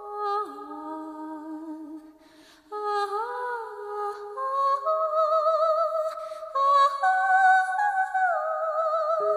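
Wordless a cappella vocal harmony: several voices sing long held notes with vibrato, moving slowly from chord to chord, with a short pause about two seconds in.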